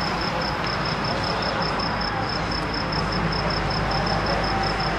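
Steady wash of background noise with a faint high chirp repeating evenly, about five times a second.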